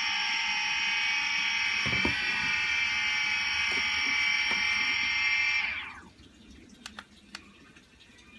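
DJI Phantom 3 Standard's brushless motors spinning without propellers, a steady high whine made of several tones. A little under six seconds in, the whine slides down in pitch and stops as the motors spin down. A few faint ticks follow.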